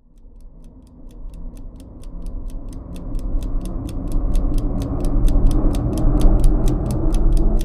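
Steady ticking, about five ticks a second, over a deep cinematic drone that swells steadily louder: a sound-design transition under a chapter title card.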